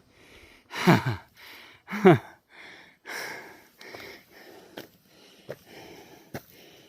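Heavy breathing from a person out of breath after a hard uphill climb. It starts with two loud voiced exhales that fall in pitch, about a second apart, then settles into quieter panting breaths with a few small clicks.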